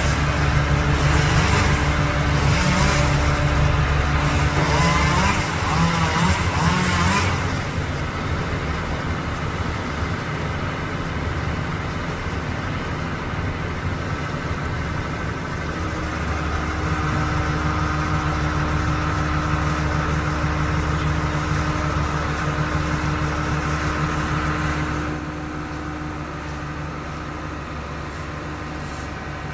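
A motor engine running steadily. A louder, wavering whine rides over it for the first several seconds, and the level drops somewhat near the end.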